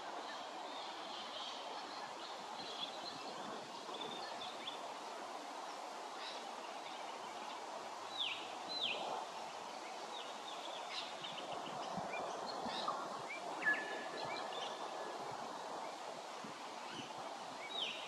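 Steady background hiss with scattered calls of small wild birds: two quick falling whistles about eight seconds in, a short held whistle a little later, another falling note near the end, and faint chirps between.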